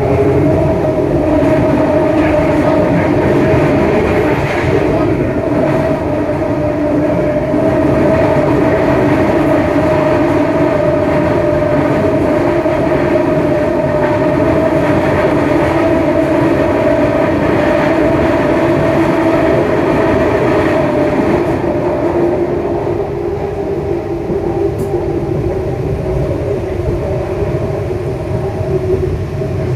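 Detroit People Mover car, driven by linear induction motors, running along its elevated guideway, heard from inside the car: a continuous rolling rumble with two steady held tones over it. The sound eases a little about two-thirds of the way through as the car curves.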